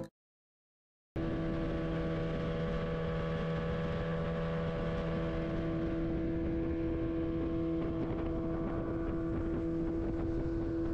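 Bass boat's outboard motor running steadily with the boat underway. It comes in about a second in after a moment of silence and holds an even, unchanging hum.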